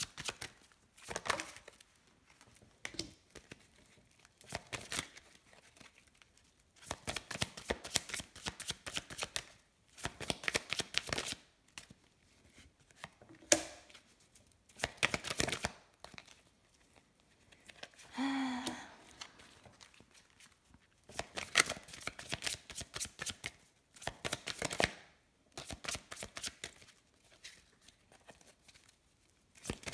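A large deck of oracle cards shuffled by hand, hand over hand, in repeated spells of quick papery flicking and slapping that each last a second or two, with short quiet pauses between them.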